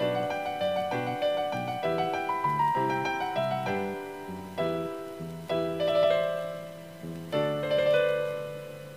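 Instrumental music led by a piano-toned keyboard: melody notes struck and fading over a moving bass line, a few held notes near the end.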